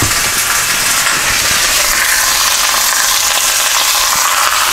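Thin-sliced chip steaks sizzling steadily in a hot wok.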